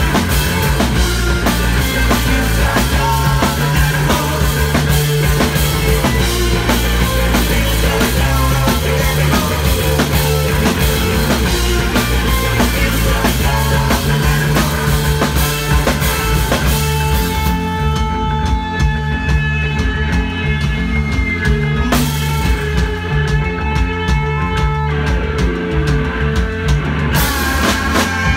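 Live rock band playing loud: drum kit, electric guitar and bass. About two-thirds of the way through, the cymbals drop out for a stretch of held guitar tones over bass and drums. Near the end the full band crashes back in.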